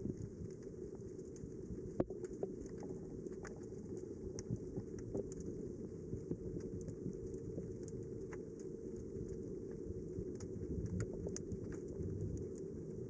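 Underwater ambience heard through a diving camera: a steady muffled low rush of water with scattered sharp clicks and crackles, one louder click about two seconds in.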